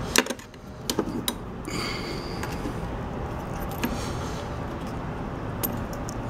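Sharp small clicks and a brief scrape of a plug-on thermal overload protector and its wire connectors being worked off a refrigerator compressor's terminal pins by hand.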